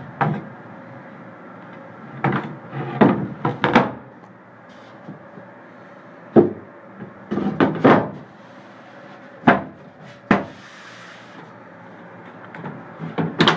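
Plywood panels of a homemade truck-bed platform being lifted and set back down: wooden knocks and clatters in several clusters, about a dozen in all.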